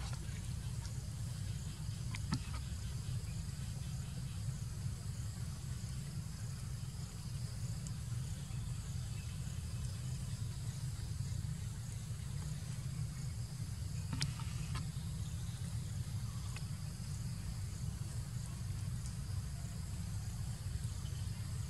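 Outdoor ambience: a steady low rumble under insects chirring at a high pitch, with a couple of faint clicks about two seconds in and again midway.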